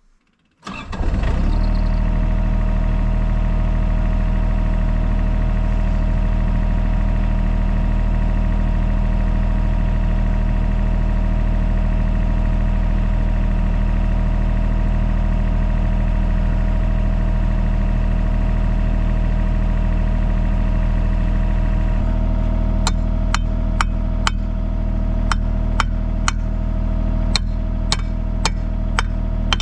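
Diesel excavator engine starting abruptly about a second in and then running steadily. Over the last several seconds a series of sharp knocks comes at about one to two a second.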